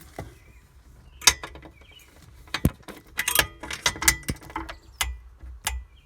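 Metal hand tools at work on bolts and nuts: a string of irregular sharp metallic clicks and clinks, some ringing briefly, with low knocks of handling in between.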